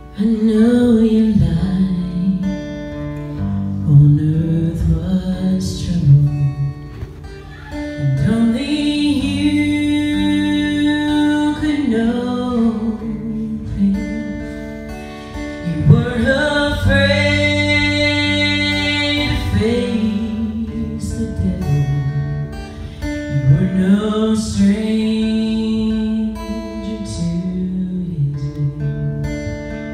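A song with acoustic guitar and a singing voice.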